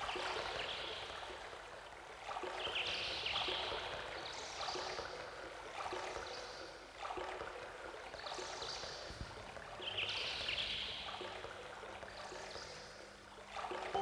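Recorded flowing-water sounds in a background soundtrack, a hiss that swells and fades about every two seconds, with faint music underneath.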